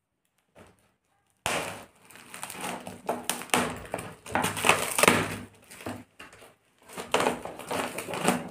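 Scissors cutting and hands tearing through layers of brown packing tape and plastic wrap on a parcel, crackling and ripping on and off, starting about a second and a half in.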